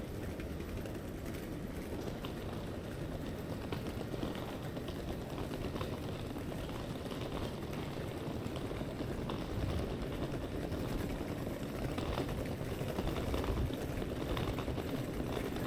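Railway station ambience: a steady low rumble with faint scattered clicks and taps.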